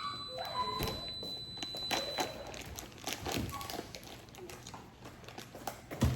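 Scattered knocks and taps of kitchen items being handled, with a heavier thud near the end and faint voices in between.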